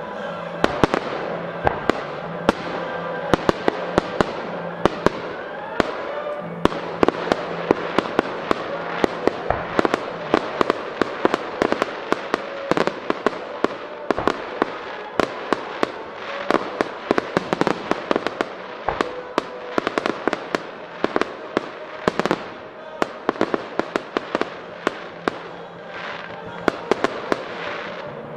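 Rapid-fire barrage of fireworks: many sharp bangs and crackling reports, several a second, with music playing underneath.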